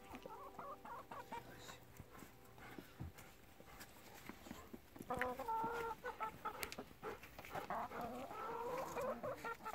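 Brown hens clucking, with a busier run of calls from about five seconds in and a longer, wavering call near the end.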